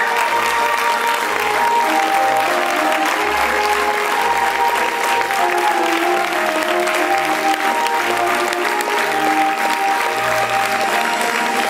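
Theatre audience applauding steadily over music with held tones.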